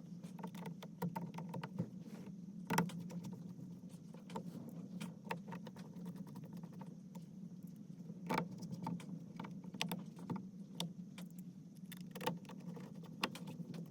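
Irregular light clicks and rattles of hand work on plastic and metal parts as the airbag module is set back into the steering wheel, over a steady low hum.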